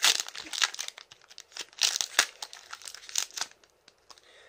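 Foil Pokémon booster pack wrapper being torn open and crinkled in the hands, a run of sharp crackles that thins out near the end.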